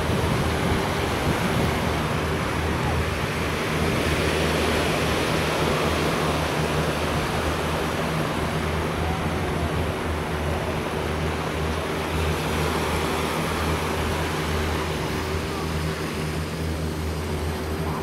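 A steady engine hum, unchanging throughout, under a constant wash of surf and wind noise.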